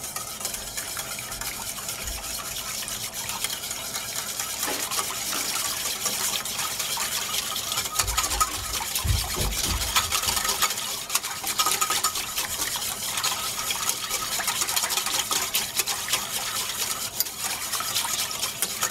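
Rapid, steady whisking with a metal utensil in a stainless steel saucepan: continuous scraping and clicking of metal on the pan with liquid sloshing, as yogurt is beaten into warm chocolate milk. A few low bumps come around the middle.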